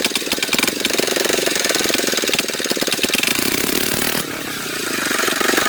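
An engine running with a fast, even pulsing, dipping briefly about four seconds in.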